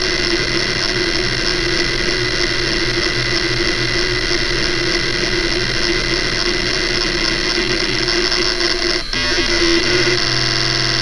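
Hitachi Ultrastar DK32EJ-36NC hard drive's heads seeking rapidly and without pause under the hdmotion test: a dense, continuous seek noise over steady tones from the spinning drive. About nine seconds in, the noise dips briefly and changes character as the seek pattern switches.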